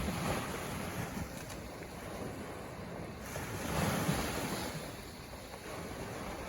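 Ocean waves washing onto the shore, with a wave surging in at the start and another about four seconds in.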